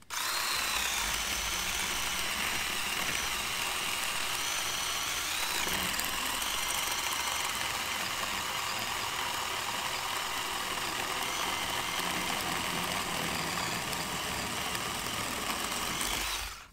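Ryobi 18V brushed battery chainsaw cutting through a log: a steady electric-motor whine with the chain running through the wood. The pitch sags briefly about five seconds in.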